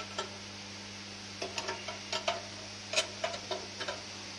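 Light metallic clicks and taps of an open-end wrench against the steel fuel-line union nuts on a common rail, one near the start and then an irregular run of them through the second half, over a steady low hum.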